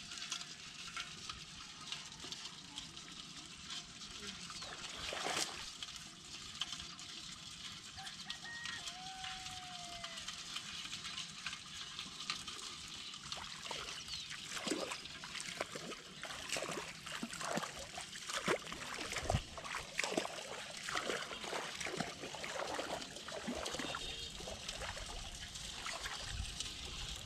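Shallow river water trickling and splashing as hands work a bamboo fish trap in it, with irregular small splashes and drips that grow busier and louder from about halfway through.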